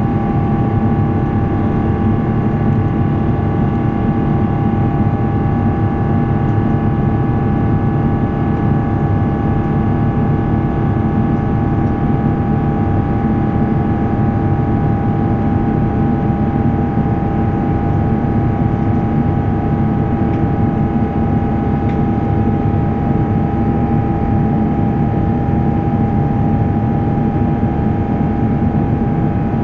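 Airbus A350's Rolls-Royce Trent XWB engines and rushing airflow heard inside the passenger cabin: a steady drone with several steady whining tones above it.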